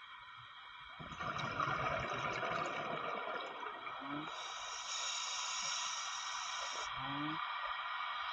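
Underwater sound picked up through a diver's camera housing: a steady hiss of water noise, with a short rising squeak from a scuba regulator near the start of each breath, about every three seconds.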